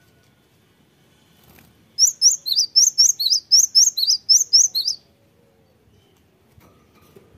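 Cinereous tit singing: a rapid series of paired whistled notes, about four a second, lasting about three seconds from about two seconds in.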